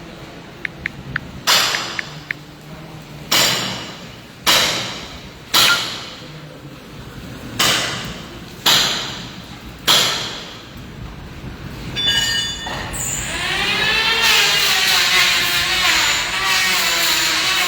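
About seven separate hammer blows on construction material, each with a short ringing tail. About thirteen seconds in, an electric power tool starts and runs steadily, its pitch wavering as it works.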